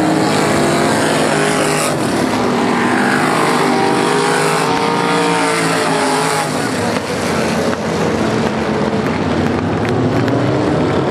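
Several traditional (non-winged) sprint car engines running at racing speed on a dirt oval, their pitch rising and falling as the cars pass, with a clear falling pitch sweep as one car goes by a couple of seconds in.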